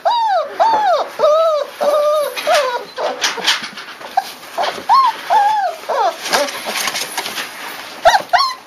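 German shepherd puppies whining, a string of short cries that rise and fall in pitch, about two a second at first, fewer in the middle and picking up again near the end.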